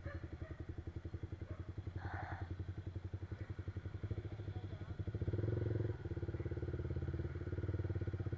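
Yamaha R15's single-cylinder engine breathing through an aftermarket Akrapovic exhaust, idling with an even pulsing beat, then opened up about five seconds in as the bike pulls away, with a brief dip in the note near six seconds.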